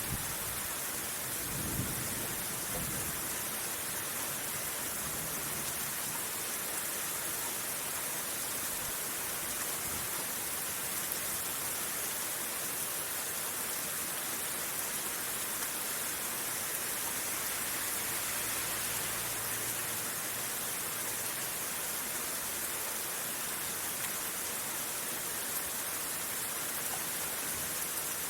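Steady rain hissing throughout, with a short low rumble of thunder about two seconds in.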